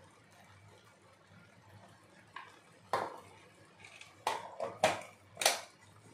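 Kitchen utensils clinking, a spoon knocking against the pan and spice containers while chilli powder is added to the curry. About five short, sharp clinks start a little over two seconds in, the loudest near the end.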